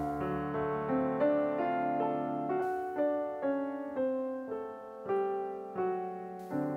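Background piano music, a slow melody of single notes struck about every half second and left to fade.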